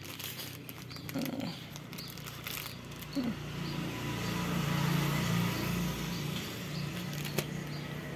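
A motor vehicle passing in the street, its engine hum building to a peak about halfway and easing off, over light rustling and soft clicks of a non-woven fabric bag being handled.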